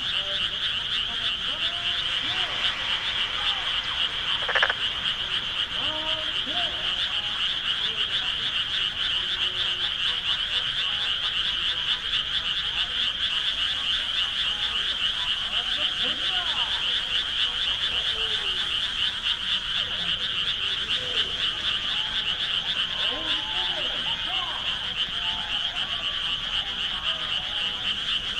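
A dense, continuous chorus of frogs calling in rice paddies: many fast, high-pitched pulsing calls merge into one unbroken din. Scattered short, lower calls come through beneath it, and one louder call stands out about four and a half seconds in.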